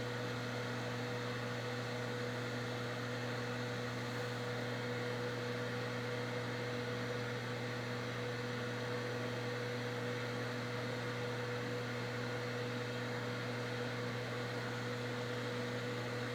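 Crown Macro-Tech 3600 power amplifier idling, its cooling fan running steadily at the lower idle speed: a steady low hum over an even hiss, which the owner rates as "not too bad" for fan noise.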